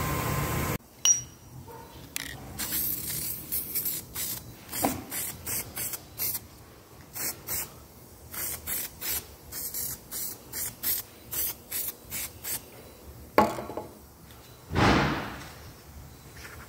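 Aerosol spray paint can hissing in short bursts, about two a second, as grey paint goes onto the gearbox housing. Near the end comes a knock, then one louder, longer rush that tails off.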